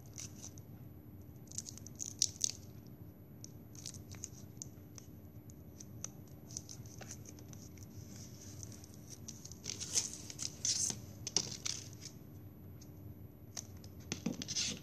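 Plastic drinking straw and double-sided tape being handled: scattered short rustles, crinkles and scratches as the tape is stuck and pressed onto the straw, with a louder cluster of crackles about ten seconds in.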